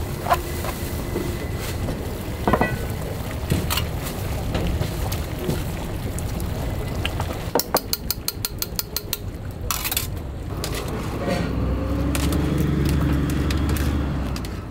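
Ramen stall kitchen at work: clinks and knocks of bowls and utensils over a steady low rumble, with a quick run of rattling taps, about seven a second, eight seconds in.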